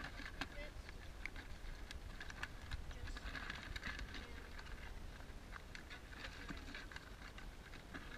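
Scattered light clicks, taps and rattles as a wire-mesh crab trap is handled and shaken over a bucket to empty the catch.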